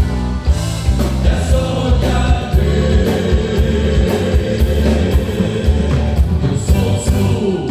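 Live band playing gaúcho music with a steady beat and a singing voice.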